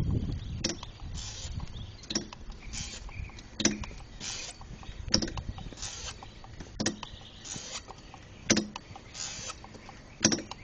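Rear left wheel of a car rolling slowly with the engine off, making a sharp creak or knock once per wheel turn, about every second and a half and spacing out slightly as the car slows. A short grinding hiss comes between the knocks. It is a fault noise tied to the wheel's rotation that the owner cannot identify.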